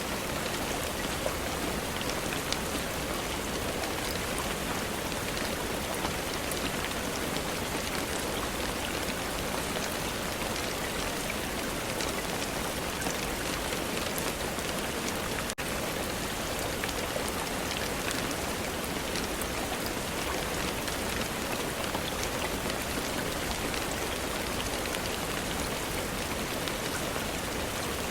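Steady, dense rain falling, with many individual drops ticking on a surface. There is a brief dropout about halfway through.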